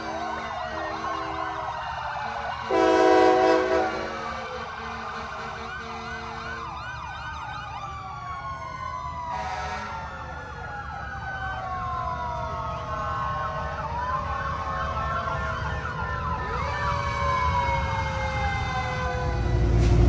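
Several emergency-vehicle sirens wailing at once, their tones overlapping as they rise and fall. A steady horn chord sounds through the first several seconds, with a loud, short horn blast about three seconds in.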